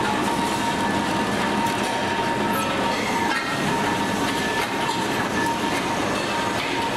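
Steady machinery din of a metal-forming press line, with a constant whine running through it.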